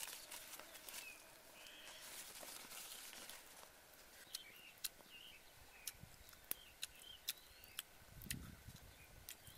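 Faint outdoor ambience: short, high bird chirps repeating over and over, with scattered sharp clicks.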